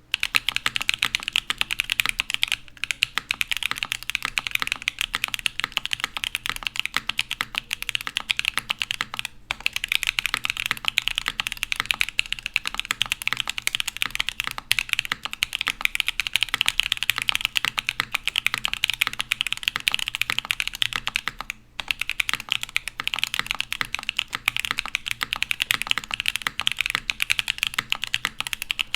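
Fast continuous typing on a NuxrosKB Krush65 mechanical keyboard: stock Gateron Beer tactile switches in a top-mount sandblasted polycarbonate case with an aluminum plate, under GMK Jamón doubleshot ABS keycaps. Rapid keystroke clacks, with a few brief pauses.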